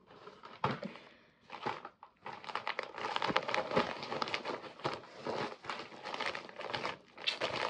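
Packaging being handled, crinkling and rustling. A few separate rustles come first, then a dense run of small crackles from about two seconds in until near the end.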